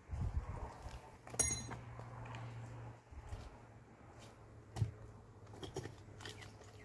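A few sharp clinks and knocks over quiet outdoor background: one ringing clink about one and a half seconds in, and a duller knock near five seconds.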